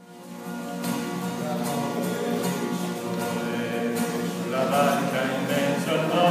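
A church hymn fades in, with guitar accompaniment and voices singing.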